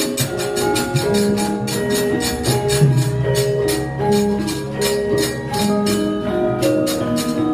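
Javanese gamelan playing: sustained pitched notes that change every second or so, over a fast, even beat of sharp percussive strokes, about four or five a second.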